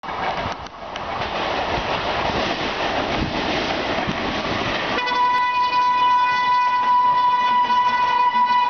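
Electric locomotive's air horn sounding one long, steady blast as the express approaches at speed, starting about five seconds in after a rushing noise.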